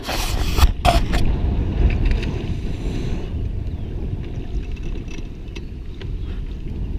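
Wind buffeting the microphone, a steady low rumble, with a few sharp knocks and rustles in the first second as the camera is handled.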